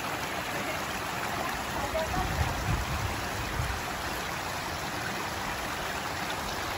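Shallow rocky mountain stream running steadily over stones and pebbles, a continuous rush and babble of water. A low rumble joins it for a second or two, starting about two seconds in.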